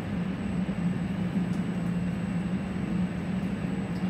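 Steady low drone and even rushing noise of commercial kitchen equipment running, such as the range and its ventilation hood.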